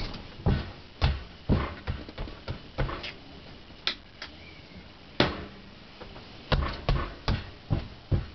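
Footsteps thudding on the floor as someone walks away and back, about two steps a second, with a few sharper knocks in the pause between, the loudest about five seconds in.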